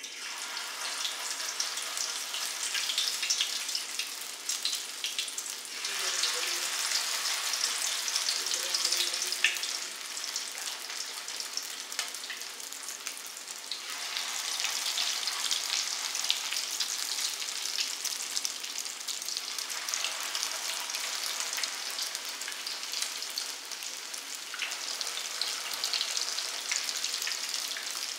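Potato latke batter sizzling and crackling as it fries in hot peanut oil at about 350°F. The sizzle swells louder a few times as each new portion of batter goes into the oil.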